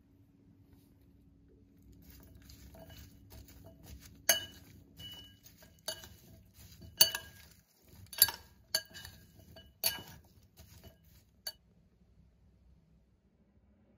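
A spoon stirring chopped potato, capsicum and onion in a glass mixing bowl: soft rustling of the vegetables, and irregular sharp clinks as the spoon knocks against the glass, which rings briefly after each knock. The stirring starts about two seconds in and stops a couple of seconds before the end.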